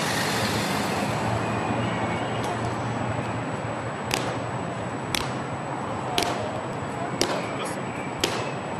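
Parade guards' boots stamping on paving stones in a slow, high-stepping ceremonial march, one sharp stamp about every second beginning about four seconds in. Steady city traffic noise runs underneath, louder at the start as a car passes.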